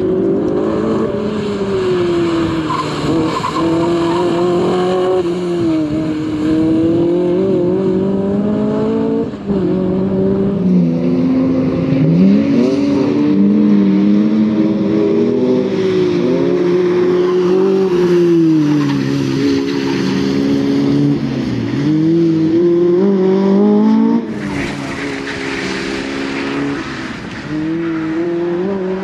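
Honda K20A inline-four in a Lotus Elise revving hard on track, its note climbing and dropping over and over with throttle and gear changes.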